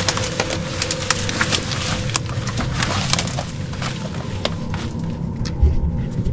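Footsteps scrambling over rock: a run of irregular crunches and scrapes.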